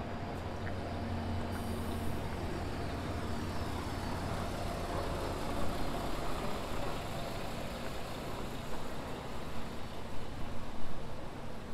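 City bus engine running with a steady low hum, which gives way about halfway through to a louder, broad rush as the bus drives past.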